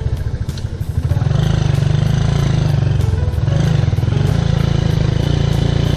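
Hero Honda Ambition's single-cylinder four-stroke engine running steadily as the motorcycle pulls up a dirt road, with a brief dip in loudness about a second in.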